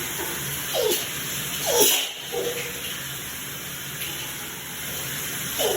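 Shower water running with a steady hiss, broken by a run of sneezes: a lighter one about a second in, a loud one about two seconds in, and another loud one right at the end. The sneezing is a fit that the sneezer suspects is a sensitivity to a new scented soap.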